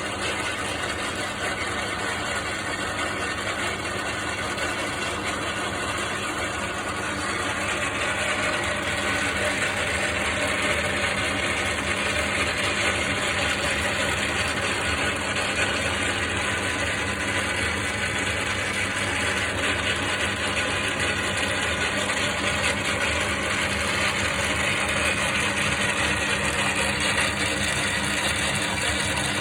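Sheldon metal lathe running with a steady mechanical rattle, which the owner puts down mainly to the lead screw gears, still unoiled. About seven seconds in, the rattle grows louder and brighter.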